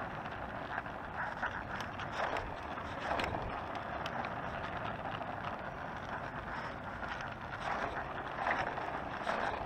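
Oxelo Town 9 EF kick scooter rolling on asphalt: a steady rumble of the wheels on the road with many small scattered rattles and clicks.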